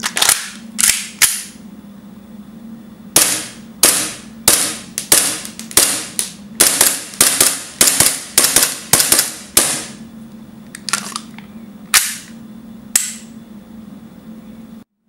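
Tokyo Marui Glock 17 gas blowback airsoft pistol with an aluminium slide firing about twenty single shots, each a sharp crack of gas and the slide cycling. Three shots at the start, a pause, a quick string of shots, then a few more spaced out near the end.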